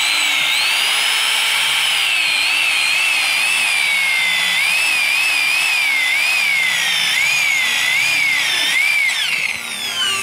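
Electric hand drill boring through a sheet-metal bracket: a loud, high screech from the bit cutting the metal, wavering up and down in pitch as the pressure changes. It stops near the end.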